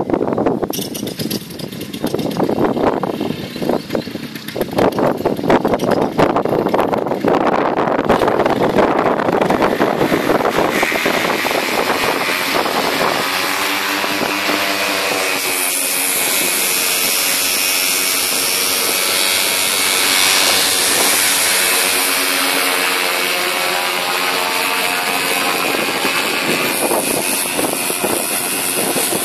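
Gusty wind buffeting the microphone through the first several seconds, then a paramotor's engine and propeller running steadily at high power for takeoff and climb, with the engine note shifting in pitch a little past the middle.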